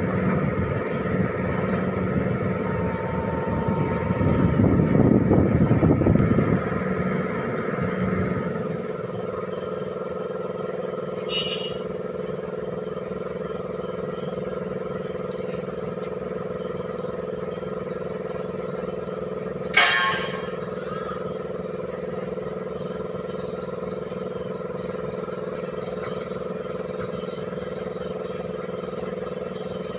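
Hitachi Zaxis 210-5G excavator's diesel engine running steadily, louder for a few seconds in the first quarter, then settling to an even run. A single sharp click sounds about twenty seconds in.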